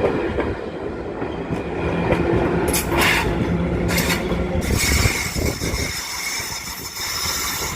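Passenger train rolling out of the station. Its wheels rumble on the track, with two clacks over the rail joints about three and four seconds in. A high, thin wheel squeal sets in about five seconds in and carries on.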